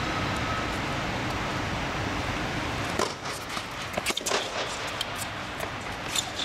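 Tennis rally: a tennis ball is struck by racquets and bounces on the court, giving a handful of sharp hits from about three seconds in, over a steady rushing background noise.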